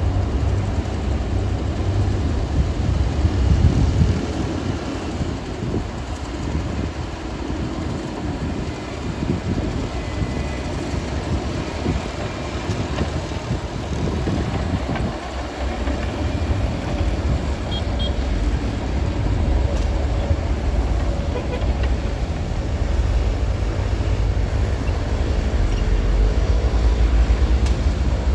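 Shantui DH17-C2 bulldozer's diesel engine running with a steady low rumble that swells and eases as it works, pushing sand.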